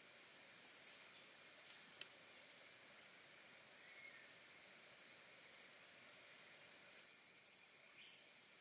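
Steady, high-pitched insect chorus droning without a break, with a faint click about two seconds in.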